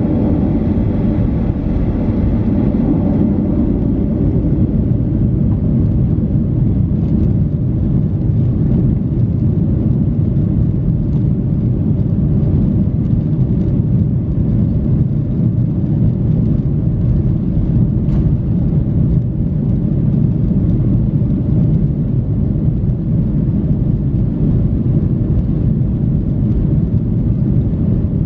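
Cabin noise in a Boeing 737-800 rolling along the runway: a steady low rumble from its CFM56-7B turbofan engines and wheels.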